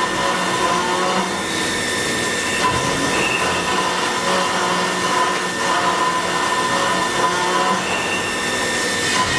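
VMC650 vertical machining center milling: the spindle runs and the cutting tool chews through the workpiece with a steady hiss and a continuous whine that wavers slightly in pitch.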